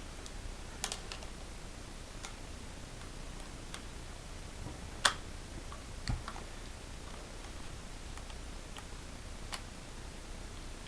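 Scattered small clicks and taps of rifle and bipod parts being handled and fitted back together by hand, the sharpest click about five seconds in and a duller knock about a second later.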